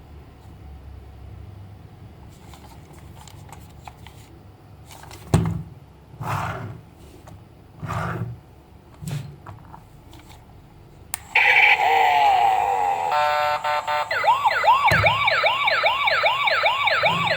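A few soft knocks of handling, then a battery-powered toy's electronic siren switches on suddenly. It warbles briefly, then wails in fast, even up-and-down sweeps, about three a second.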